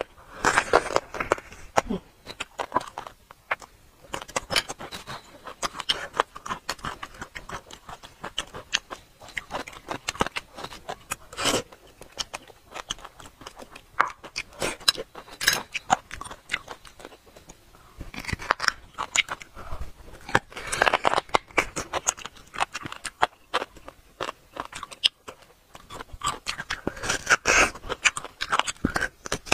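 Close-miked eating: biting and chewing roasted marrow bones and the meat on them, dense with short crunchy clicks and crackles that come in louder clusters. At times a small utensil scrapes marrow out of a bone.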